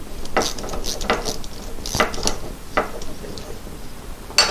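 Metal hand tools and parts clinking and clattering as they are picked up and handled, in a string of irregular knocks with a sharper clank near the end.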